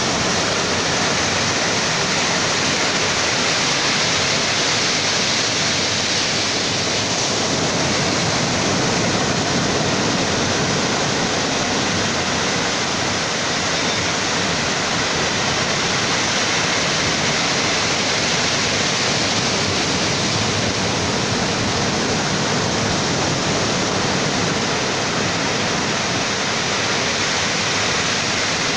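Steady roar of heavy ocean surf breaking on the beach: an even rushing noise in which no single wave stands out.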